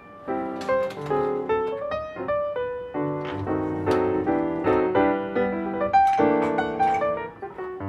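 Background piano music: a steady flow of quick notes and chords.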